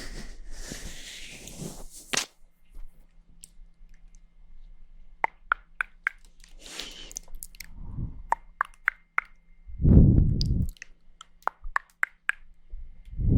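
Close-mic ASMR mouth sounds: breathy exhales at first, then a run of sharp wet tongue and lip clicks, as in ear-licking. Two low rumbling bursts against the microphone interrupt the clicks, the louder one about ten seconds in.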